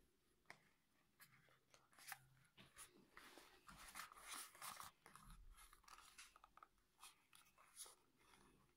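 Faint handling noise: scattered soft clicks and rustles as plastic over-ear headphones with padded earcups are turned over in the hands, busiest in the middle.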